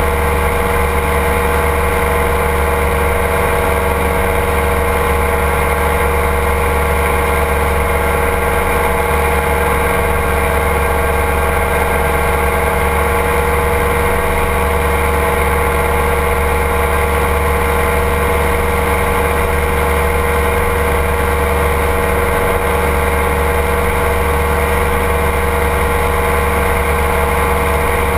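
Ultralight trike's engine and propeller running steadily in flight, a constant drone that holds the same pitch and level throughout.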